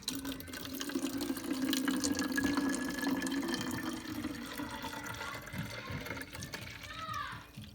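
Red-dyed vinegar being poured into a plastic water bottle: a steady splashing, gurgling stream of liquid that tails off about seven seconds in.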